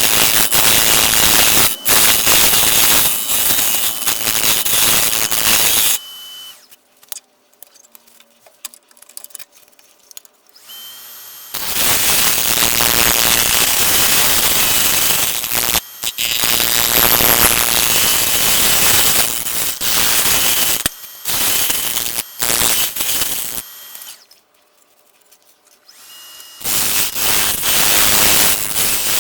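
Wood lathe at work on a maple bowl: a loud hiss from a tool or abrasive on the spinning wood, with a faint steady whine. It comes in several bouts with short pauses between them.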